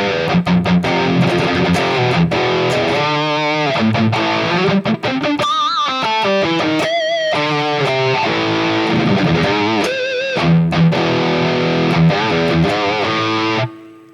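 High-gain distorted electric guitar played through a Mooer Prime S1 modeling unit's amp model with the overdrive block's volume turned down: fast palm-muted rhythm chugs, then lead lines with wide vibrato. The playing stops abruptly near the end.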